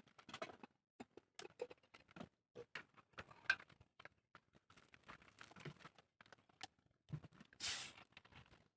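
Scattered faint clicks and taps of food and eating utensils being handled during a meal, with a short rushing noise near the end.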